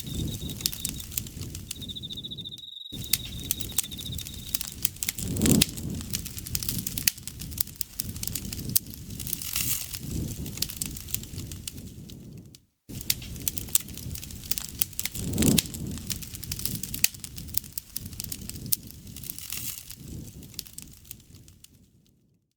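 Campfire burning, with dense irregular crackles and pops of burning wood over a low rumble of flame that swells every few seconds. An insect's steady high trill sounds for the first few seconds. The sound cuts out completely twice for a moment and fades away near the end.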